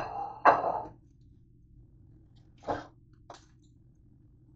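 A ceramic plate clinks twice, ringing briefly, as it is handled and set down, right at the start and half a second later; then a duller knock and a small click.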